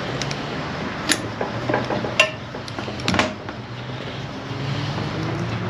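Sharp metallic clinks and knocks of transmission parts being handled as the valve body of a 42RLE automatic transmission is worked loose from the case, the loudest about one, two and three seconds in, over a steady low background hum.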